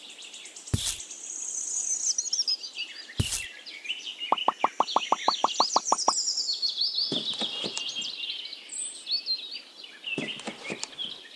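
Birds chirping and singing. Two sharp knocks land about a second in and about three seconds in. Around the middle comes a quick run of about a dozen even clicks.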